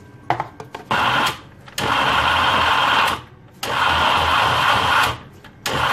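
Electric blender grinding tomatoes, onions, ginger, garlic and green chilli with a little water into a masala paste, run in pulses. A few clicks, then the motor runs in four bursts of about a second each with short pauses between.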